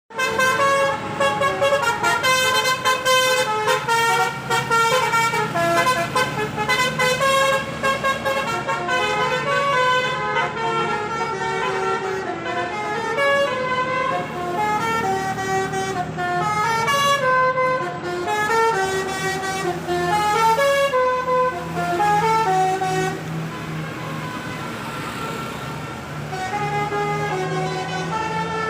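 Bus telolet: a bus's musical multi-trumpet air horn playing a quick tune of short stepped notes, one after another, with a steady low hum underneath. The notes thin out over the last few seconds.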